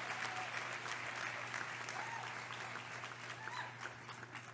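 Large crowd applauding, the clapping slowly dying down toward the end, with a few faint voices calling out in it.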